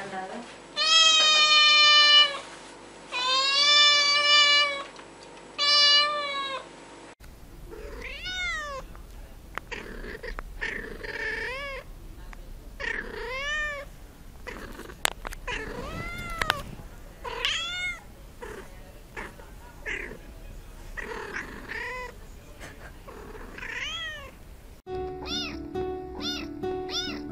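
Cats meowing: first three long, loud meows from a white cat with dark ears, then a run of many short meows that rise and fall in pitch, and near the end a tabby kitten meowing over background music.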